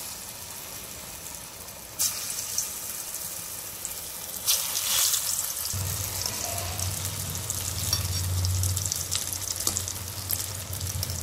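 Vadas of ground sprouted mung and moth beans deep-frying in hot oil in a steel kadai, the sizzle jumping up sharply about two seconds in and again near the middle as more vadas go into the oil. A low steady hum joins about halfway through.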